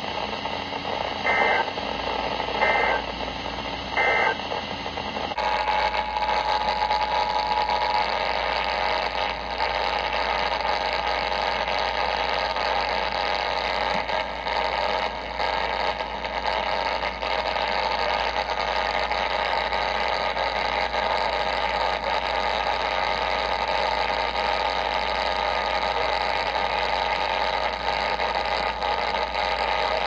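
Emergency weather radio on the NOAA weather band sending three short warbling data bursts about a second and a half apart, the end-of-message code that closes an EAS warning. After a cut, the same radio on AM shows a steady tone for about three seconds, then constant static-laden AM reception hiss.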